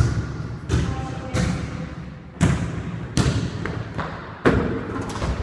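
A series of heavy thumps on a hard surface, about seven of them, coming less than a second apart with uneven spacing, each followed by a ringing echo.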